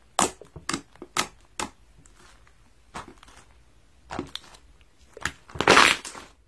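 Hands squishing and pressing fluffy white slime: a series of sharp pops and crackles, with a louder, longer crunching burst near the end.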